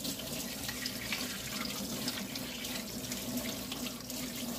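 Kitchen tap running steadily onto a whole raw chicken being rinsed by hand in a stainless-steel sink, with small irregular splashes as the hands turn the bird under the stream.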